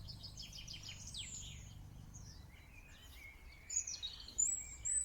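Songbirds singing in the open: a quick trill of high repeated notes, then short downward-sliding whistles, with more high whistled phrases near the end. A faint low rumble sits underneath at the start.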